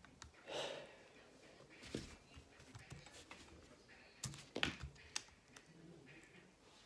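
A few light plastic clicks and taps as a pyraminx is lifted out from under its cloth cover and handled, with a louder cluster of clicks about four and a half seconds in.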